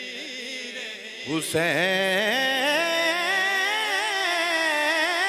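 A male voice singing a devotional kalam. After a quieter held tone, a loud long note comes in about a second in, sliding up and wavering in pitch as it is held.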